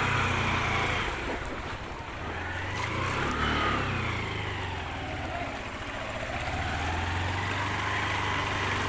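Rushing floodwater with a motor engine running under it, the engine's note rising and falling slowly several times.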